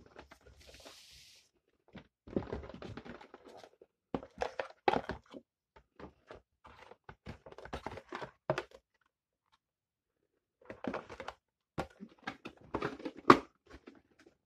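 Cardboard box and plastic wrapping being handled: scattered rustles, scrapes and knocks as the box and its cardboard insert are moved and closed. A quiet gap of about a second and a half comes after nine seconds, and a sharp knock near the end is the loudest.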